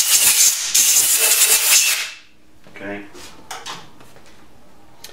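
Compressed-air blow gun blowing out a freshly drilled bolt hole in an exhaust manifold to clear out chips and carb cleaner. It gives two loud hissing blasts, the first short and the second about a second long, then stops about two seconds in.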